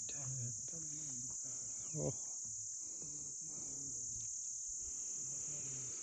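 Insects in the forest shrilling in one steady, unbroken high-pitched drone, with faint voices talking in the background during the first couple of seconds.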